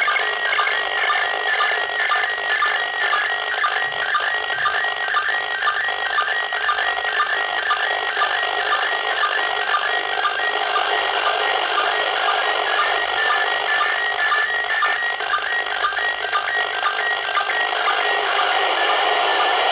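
Slow-scan television (SSTV) image signal from the International Space Station received on an FM radio: a continuous warbling stream of tones with a rhythmically repeating chirp pattern, over hiss.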